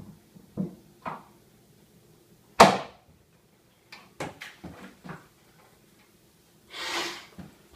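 A door bangs once, sharply, about two and a half seconds in, followed by a few lighter knocks and clatters. Near the end comes a short rushing blast of a man blowing his nose into a tissue.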